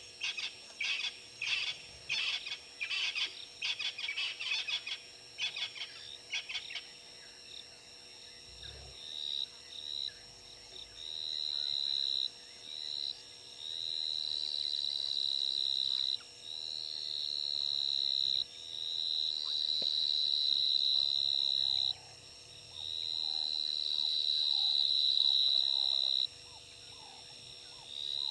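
A wild animal calls repeatedly in the bush. First comes several seconds of rapid clicking chatter, then a high, steady note repeated about five times, each note swelling for two to four seconds before cutting off abruptly.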